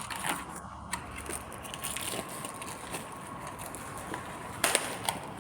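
Light clicks and taps of a replacement display panel being handled and fitted into the strapping machine's housing, with a louder knock about four and a half seconds in.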